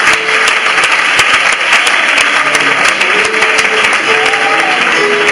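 Church congregation applauding loudly, with a few voices calling out over the clapping.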